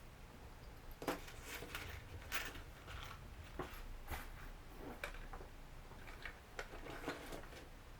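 Irregular light clicks and taps from small hand tools, such as jeweler's screwdrivers and bits, being picked up, tried and set down during a drone repair.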